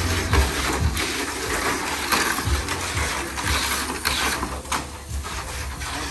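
Tamiya Mini 4WD cars running on a plastic track: small motors and gears whirring, with frequent rattling clicks.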